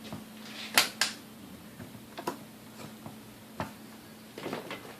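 Sharp clicks from handling the Sunbeam Mixmaster Model 12 and its controls: two close together about a second in, then a few fainter ones. The motor stays silent because the mixer is getting no power.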